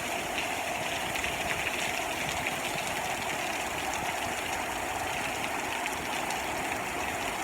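Heavy rain falling steadily, a constant rushing noise.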